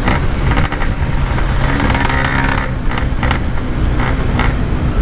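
Yamaha RX-King's 135cc two-stroke single-cylinder engine running at a steady pace while ridden, through a Packing Power standard-style aftermarket exhaust.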